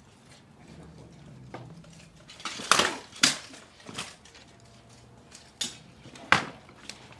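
Sharp metallic clanks of steel swords and plate armour in a live-steel sword fight: about six blows at uneven intervals, the loudest a quick pair about three seconds in.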